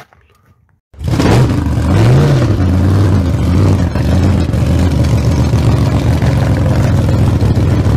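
A vehicle engine running at a steady, lumpy idle, starting suddenly about a second in, with one short rev about two seconds in.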